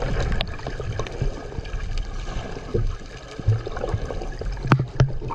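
Muffled water noise heard through a camera held just under the sea surface: bubbling and gurgling over a low rumble, with a few sharp clicks near the end.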